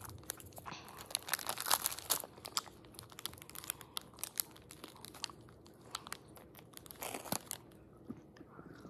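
Candy wrapper crinkling and tearing as it is handled and pulled open: irregular crackles, thickest in the first two seconds and again about seven seconds in.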